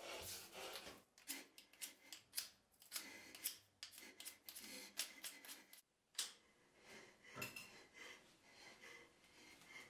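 Quiet, irregular series of sharp clicks and short rubbing strokes from hands handling small objects, thickest in the first six seconds and sparser after.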